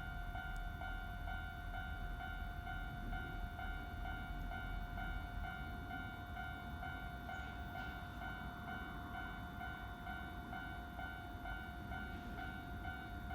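Japanese railway level-crossing alarm ringing, its electronic two-tone bell repeating at an even pace over a low rumble.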